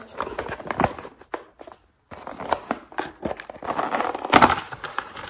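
A small cardboard phone-case box being opened by hand: cardboard scraping and tapping as the lid comes off, with paper packaging rustling, a louder rustle about four seconds in.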